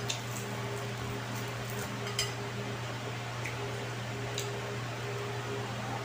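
Fingers picking at fried fish and rice on a plate, with a few small clicks, the sharpest about two seconds in, over the steady hum of an electric fan.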